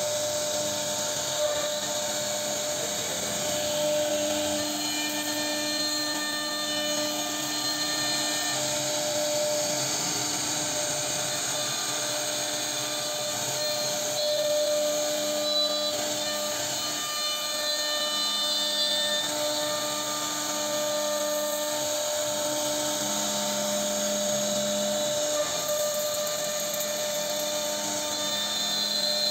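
CNC router spindle running steadily with its bit cutting a relief pattern into a wooden panel: a drill-like whine over the noise of the cut, with fainter tones that come and go.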